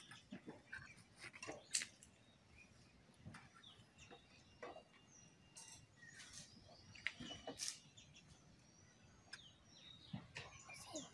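Faint clinks and scrapes of a metal serving spoon against a metal cooking pot and plates as rice is dished out, a few sharp clinks standing out. Birds chirp in the background.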